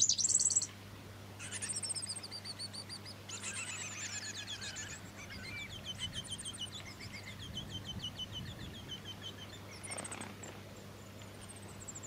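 High, rapid trills and chirps of black-backed fairywrens (splendid fairywren) at their nest: loud at the start, then several trilling runs that step down in pitch, followed by quieter repeated high notes and a brief high burst about ten seconds in.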